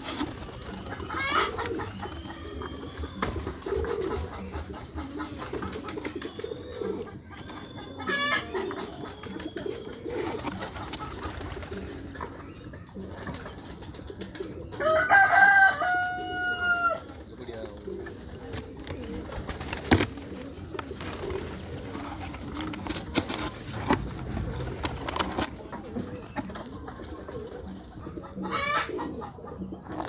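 Pigeons cooing, low and repeated. About halfway through there is a louder, higher-pitched call lasting about two seconds, along with a few brief rustles.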